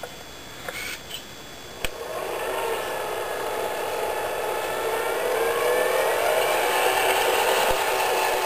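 A few light clicks. From about two seconds in, the electric motor and gearbox of a radio-controlled scale model MAN TGA 6x6 tipper truck whine as it drives through mud, the whine growing louder and rising in pitch as it approaches.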